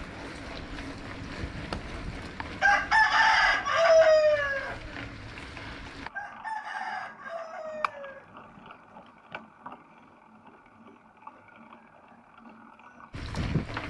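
A rooster crows loudly, its call falling in pitch at the end, and a second, shorter crow follows about two seconds later. Both are heard over the low rumble of a bicycle ride.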